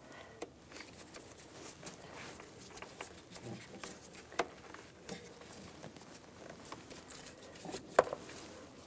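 Scattered light clicks and taps of a hose being handled and pushed into its brackets by hand, with a sharper click about four seconds in and another near the end.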